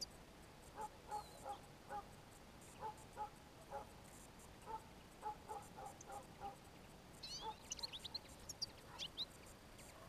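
Faint runs of short, low bird calls, repeated two or three a second. From about seven seconds in, a brief flurry of high, thin twittering chirps from small songbirds joins them.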